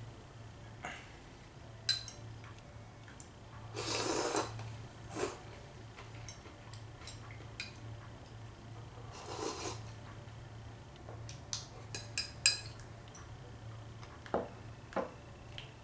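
A fork clinking against a plate with sharp, scattered taps, and two short noisy sips from a cup, about four seconds in and again about nine and a half seconds in.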